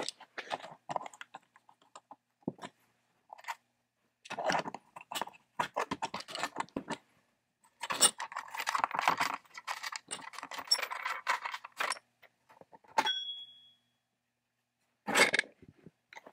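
Small metal parts clicking and clattering as the nuts and sprocket cover are worked off a 1960s Strunk electric chainsaw, with a denser run of rattling in the middle. A short metallic ring follows, and there is a heavier clunk near the end.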